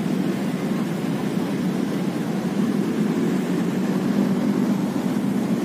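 Steady low rumble of road traffic crossing a nearby bridge, continuous with no breaks.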